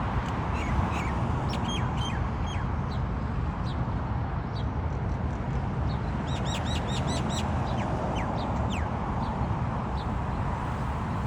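A small songbird singing: scattered short, high, falling chirps, with a quick run of about seven repeated notes about halfway through, over a steady low background noise.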